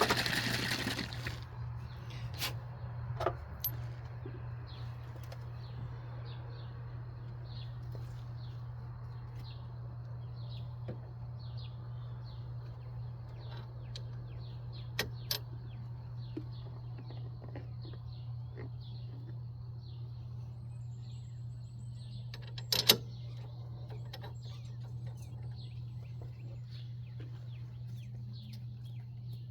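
Scattered sharp metal clicks and knocks from hand tools working on a car's front wheel hub, the loudest about 23 s in, over a steady low hum and faint bird chirps.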